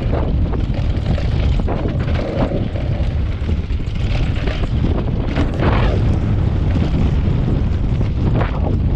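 Wind buffeting the microphone of a camera on a downhill mountain bike, mixed with tyres rolling over a loose dirt and gravel trail. The bike rattles and knocks over bumps several times.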